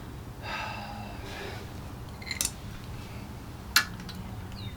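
Small metal parts and tools being handled: a brief scraping sound about half a second in, then two sharp clicks, the louder near the end, over a low steady hum.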